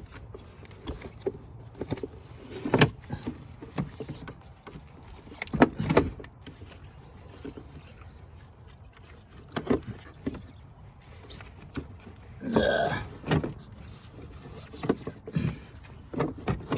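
Scattered clunks and knocks of a car battery being wrestled loose from its tray in the engine bay, with a longer scraping creak about twelve seconds in.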